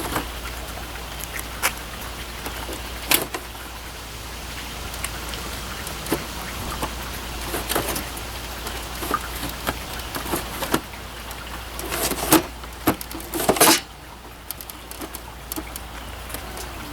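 Scattered clicks and knocks of a Macintosh Plus's case and parts being handled and fitted back together, with a cluster of louder knocks about twelve to fourteen seconds in, over a steady low hum.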